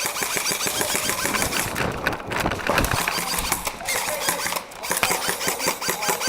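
Airsoft guns firing in rapid bursts during close-quarters play, a fast train of sharp clicks and cracks with a couple of short breaks.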